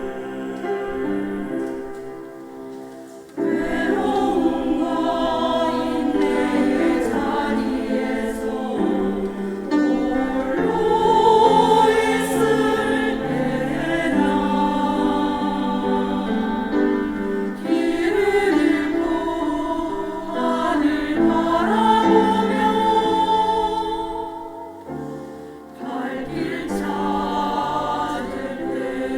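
Church choir singing a hymn in full voice, with brief pauses between phrases about three seconds in and again near the end.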